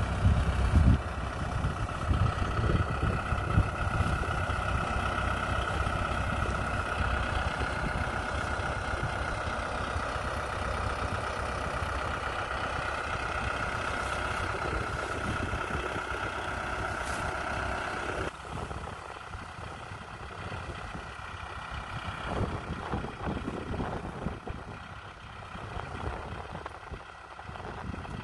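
Kubota tractor's diesel engine running steadily with a mini round baler hitched behind, a steady high whine over the engine drone. About two-thirds through, the whine stops suddenly and the running turns quieter and more uneven.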